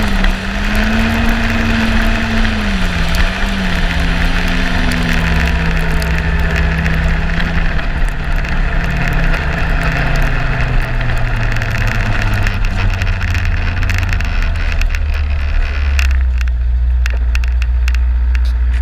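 Yamaha Apex snowmobile's four-stroke engine running at trail speed with track and wind hiss. The engine note dips and rises briefly, then falls steadily as the sled slows, ending in a low, deep note near the end.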